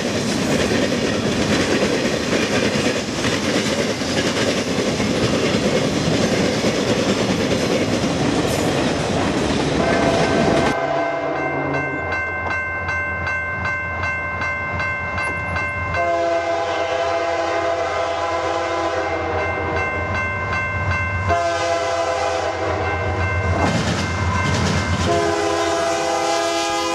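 A freight train of tank cars rolling past close by, wheels clacking over the rail joints. About eleven seconds in this gives way to an approaching diesel locomotive sounding its multi-note air horn in three long blasts, the last one running on at the end.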